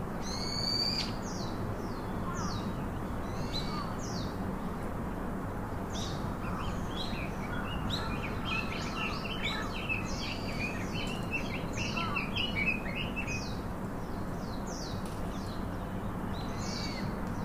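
Small birds chirping and calling over steady background noise, with a spell of rapid twittering about halfway through.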